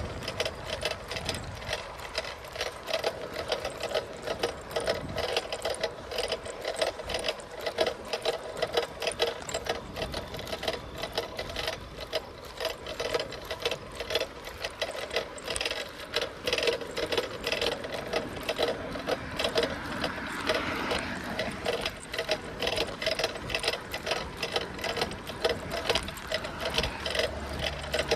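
Bicycle ticking and rattling rapidly in a fast, even buzz as it rolls along at speed.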